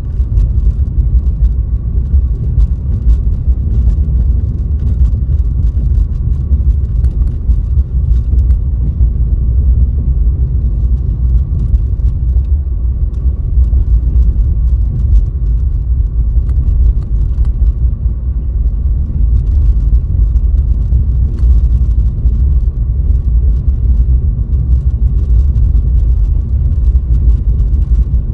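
Steady low rumble of a car driving on a snowy road, heard from inside the cabin, with faint scattered light ticks over it.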